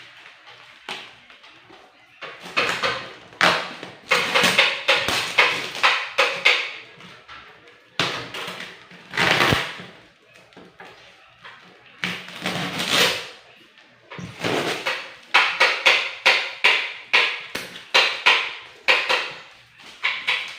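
Handling noises from unpacking a sealed box: clusters of quick taps, knocks and scrapes with short pauses between them.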